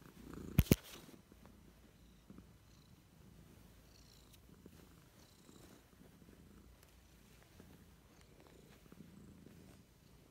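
Tabby cat purring softly and steadily close to the microphone, with two sharp knocks just under a second in.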